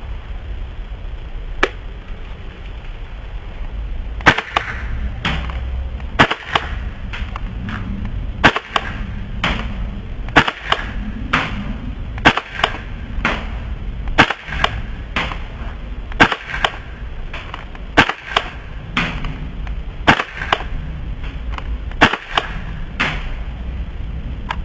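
KSC MP9 gas-blowback airsoft submachine gun firing single shots, each a sharp pop with the bolt cycling. One shot comes near the start, then shots follow about once a second.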